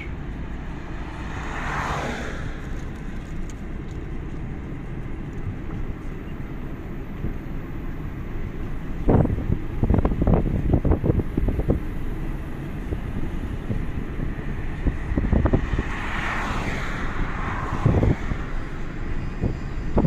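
Steady low rumble of a car's road and engine noise heard from inside the car while driving. Two other vehicles go past with a rising and falling whoosh, about two seconds in and again near the end. Wind buffets the microphone in rough gusts from about nine seconds in.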